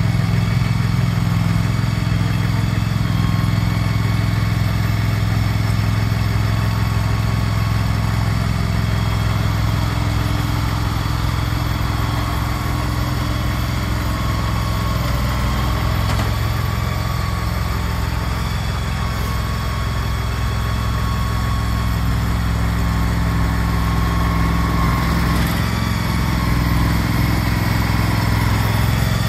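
Small engine of a tracked shed mover running steadily while it moves a shed, a constant low hum with a thin, higher whine above it.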